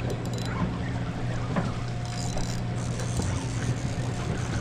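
Steady low hum of the party boat's engine under a wash of wind and water noise.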